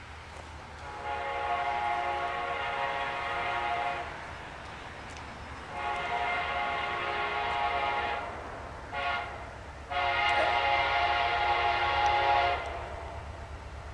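Distant approaching train's horn sounding the grade-crossing signal: two long blasts, a short one and a final long one, each a chord of several tones.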